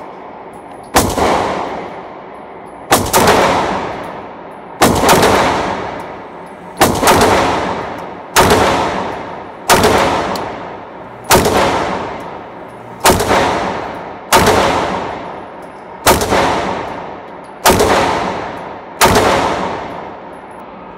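Semi-automatic pistol fired twelve times in slow, steady aimed fire, one shot every one and a half to two seconds. Each shot rings on with the echo of an indoor range booth.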